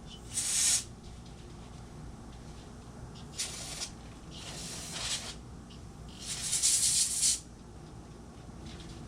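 Aerosol spray can hissing in four short bursts, the longest about a second, as a throttle housing and tube are sprayed clean.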